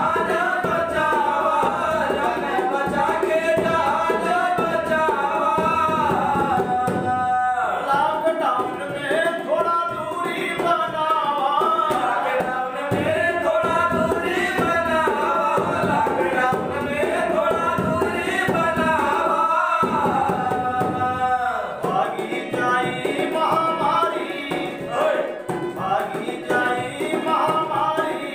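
Male voices singing a Bhojpuri folk song to harmonium and hand-drum accompaniment, the melody wavering over sustained reed tones with short breaks between phrases.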